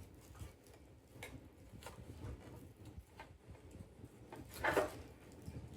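Quiet hand-handling of packaging: scattered faint clicks and light knocks, with one short, louder rustle near the end.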